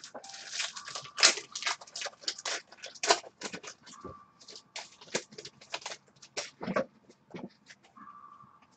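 Hockey trading cards handled and flicked through in the hands: a quick, irregular run of card-stock clicks, snaps and rustles, busiest in the first few seconds.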